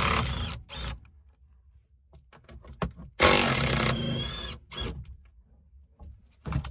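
Cordless power tool running on the top nut of a rear strut mount, in two runs: one that stops about half a second in, and a second of about a second and a half starting about three seconds in, with a high whine near its end. Brief trigger blips come in between and near the end.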